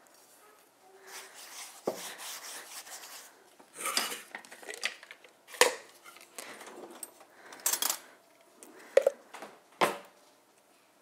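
A metal spoon clinking and scraping in a container of tomato sauce, with about six sharp knocks of utensils and kitchenware on the worktop.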